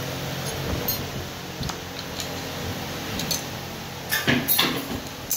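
Steel gearbox parts clicking and clinking as the gear shaft with its gears and synchro rings is handled and turned, with a few scattered ticks and a louder burst of clinks about four seconds in, over a steady background noise.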